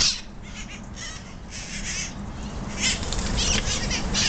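A flock of red-masked parakeets (cherry-headed conures) giving harsh, raspy screeches, one call after another.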